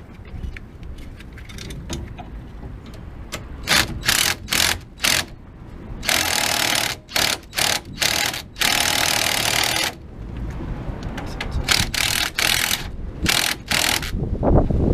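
A power tool run on a nut in a string of short bursts, with two longer runs of about a second and more near the middle. The whole fastener spins with it instead of coming undone.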